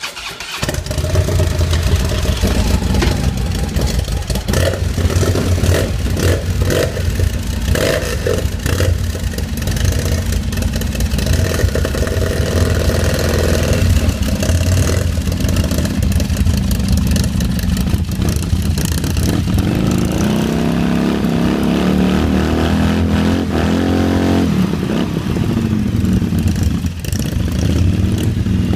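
Harley-Davidson touring motorcycle's V-twin engine running, with uneven revs, then revving up as the bike pulls away through snow.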